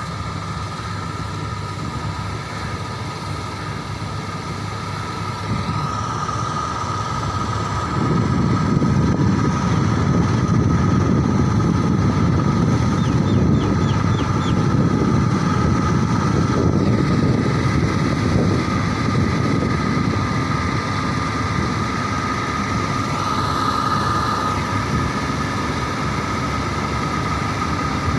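Combine harvester running as it cuts wheat: a steady engine drone with a high whine over it, growing louder about eight seconds in.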